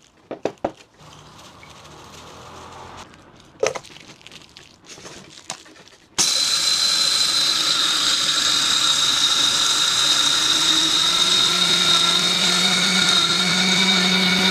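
A few handling knocks and clicks, then about six seconds in the electric grinder's motor switches on abruptly and runs steadily at full speed, grinding a load of beans with a high whine over a lower hum.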